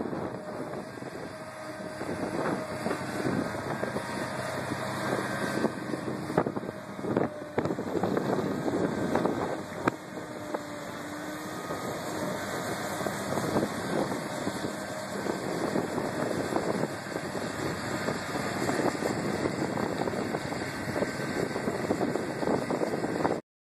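John Deere 764 High Speed Dozer's 6.8 L diesel engine running under load as the dozer pushes and grades dirt with its blade, with wind noise on the microphone.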